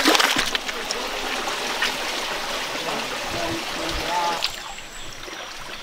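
Shallow stream water rushing and splashing around the feet of someone wading through it, with a few sharper splashes at the start.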